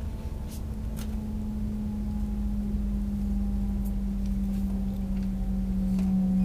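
Interior of an AVE Class 103 (Siemens Velaro E) high-speed train running at speed: a steady low rumble with a strong low hum that slowly slides down in pitch and grows louder, plus a few faint clicks.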